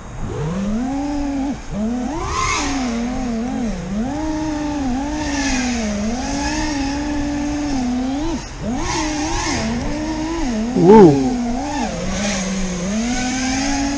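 FPV quadcopter's brushless motors (T-Motor Velox 2207 1950kv) whining in flight, the pitch rising and falling continually with the throttle. About three quarters of the way through there is a brief, louder surge up in pitch and back down.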